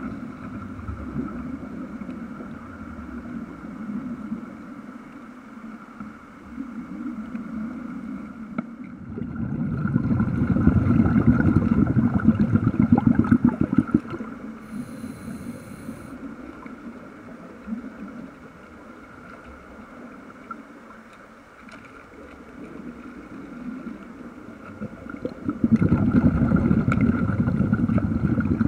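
Air bubbling out of a Mark V hardhat diving helmet's exhaust, heard underwater as a dense bubbling rumble. It swells loud about ten seconds in for some four seconds, and again near the end.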